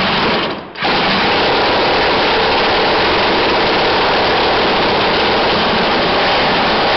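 Homemade motorcycle engine on a test stand, turned over with an electric drill, catches about a second in and then runs steadily.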